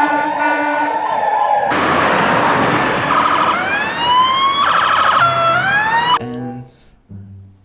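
Emergency-vehicle siren sounds: an alternating two-tone siren, a burst of hiss about two seconds in, then repeated rising wail sweeps that cut off abruptly about six seconds in. A few quieter low tones follow near the end.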